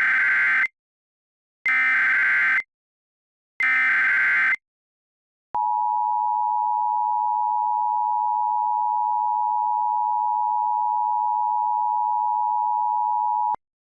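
Emergency Alert System SAME header: three short bursts of screechy data tones about two seconds apart, then the EAS two-tone attention signal sounding steadily for about eight seconds. This is the standard start of an alert, ahead of the spoken message.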